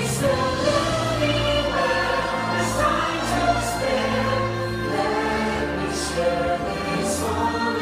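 Fireworks show soundtrack played over the park's loudspeakers: a choir singing over sustained musical chords.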